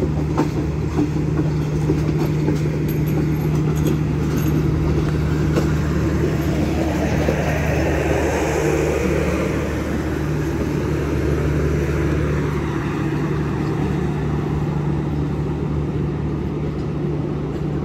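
Pakistan Railways passenger train coaches rolling past along a platform, with a steady low hum throughout. The sound swells as the train's power van, its generator car, goes by about eight seconds in, then eases as the end of the train moves away.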